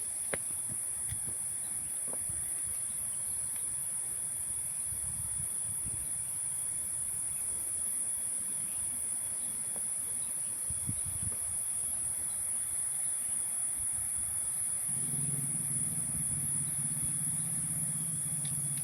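Steady high-pitched drone of tropical insects, such as cicadas or crickets. About fifteen seconds in, a low, even motor hum joins it and holds to the end.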